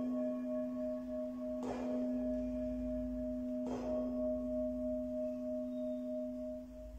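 Sanctus bell rung at the elevation of the chalice during the Eucharistic prayer: a deep, pure-toned bell struck again twice, about two seconds apart, its tone ringing on steadily and fading away near the end.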